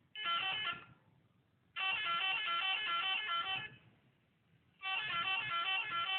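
RC model bus's electronic telolet horn playing its tootling melody in three bursts: a short one, then two longer phrases of notes that change in steps.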